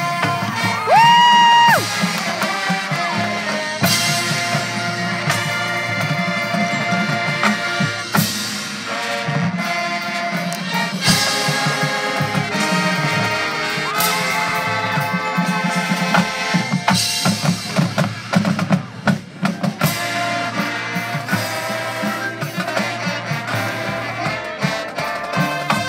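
Marching band playing: brass over drumline percussion with repeated sharp drum hits. About a second in, a loud tone rises in pitch and holds briefly.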